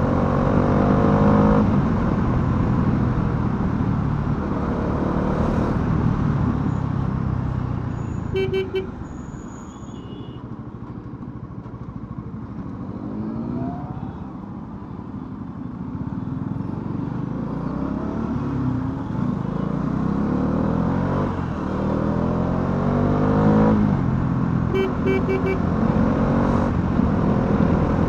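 Bajaj Dominar 400's single-cylinder engine under way, its revs rising again and again as it pulls up through the gears. It eases off to a quieter stretch in the middle, then accelerates again. Twice, a horn gives a quick burst of about three short beeps.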